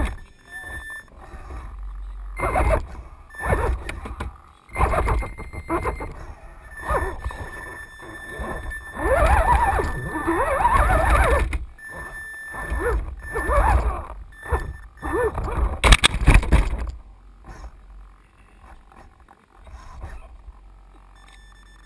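Irregular knocks, bumps and scrapes of a radio-controlled rock crawler on rock, picked up close by a camera mounted on the truck's body, over a low rumble. The loudest knocks come about sixteen seconds in, and the last few seconds are quieter.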